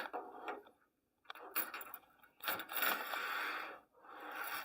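Handling noise: a small adapter being rubbed and turned over in the hands, short scrapes with a steadier scraping stretch a little past halfway.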